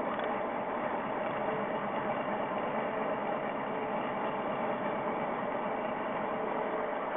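HO-scale model train running along its track, heard from a camera riding on the train: a steady, even mechanical hum with faint steady tones and no breaks.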